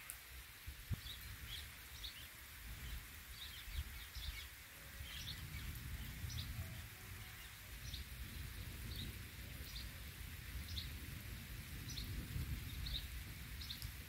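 A bird chirping in short, repeated calls, about one every half-second to a second, over a steady hiss of light rain and an uneven low rumble.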